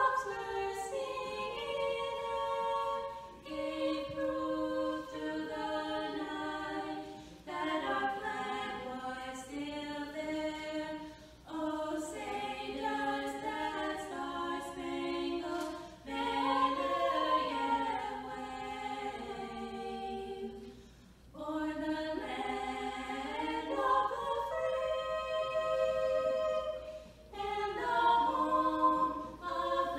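Two young women singing a national anthem unaccompanied, their voices together in sustained phrases with short breaks between lines.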